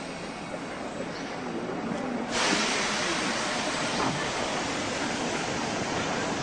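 Commuter train running, a steady rumble and hiss that grows louder about two seconds in.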